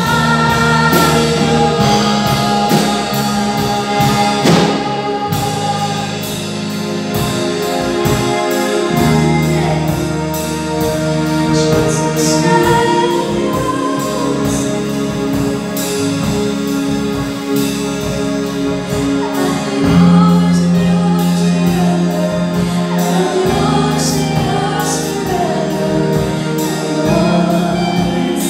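Live worship band performing a praise song: a group of singers over guitar, keyboard and drums, with a steady beat.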